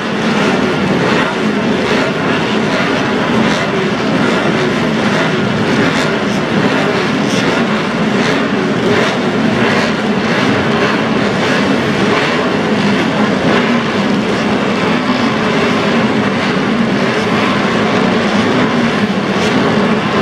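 Engines of vintage racing motorcycles, built up to 1972, running at speed on the circuit, a steady loud mix with no break.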